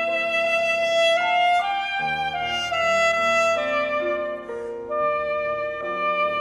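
Alto saxophone playing a classical melody of held notes that step up and down, accompanied by piano chords, with a short breath-break about two-thirds of the way through.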